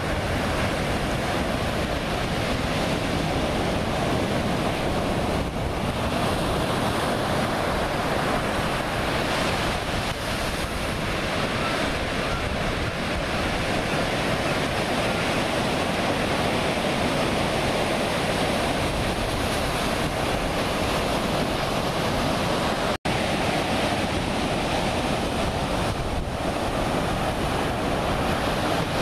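Ocean surf breaking steadily, mixed with wind buffeting the microphone. The sound cuts out for an instant about three quarters of the way through.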